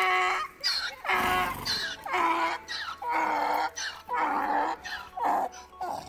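Donkey braying: a loud run of about six or seven hee-haw calls in a row, each about half a second long.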